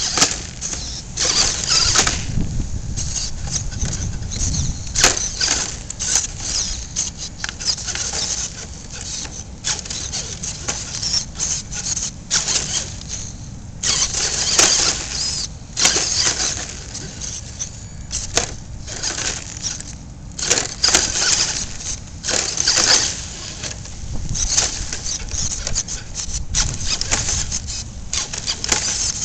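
Electric drive motor and gearbox of a radio-controlled rock crawler whining in short, irregular stop-and-go bursts as the throttle is worked, with its tyres scrabbling on rock.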